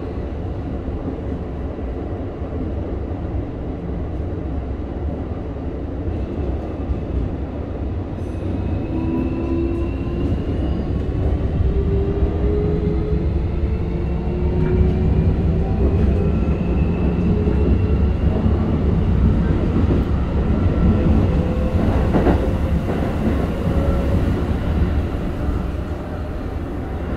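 Cabin running sound of a Keikyu 1000 series train with Toshiba IGBT-VVVF control and permanent-magnet synchronous motors: a steady wheel-and-rail rumble. From about a third of the way in, the motor and inverter whine rises gradually in pitch as the train picks up speed, growing louder through the middle and easing a little near the end.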